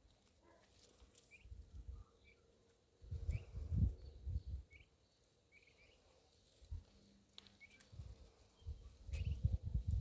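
Short high bird chirps repeating every half second to a second, over bursts of low rumble that are the loudest sound, around the middle and near the end.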